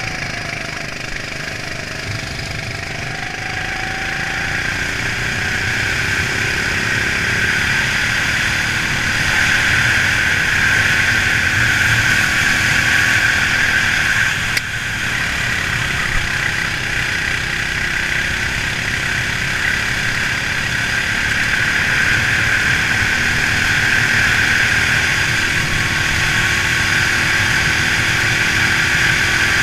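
Racing kart engine running hard under way, recorded from the kart itself with wind on the microphone. It builds in loudness over the first ten seconds or so and drops briefly about halfway through.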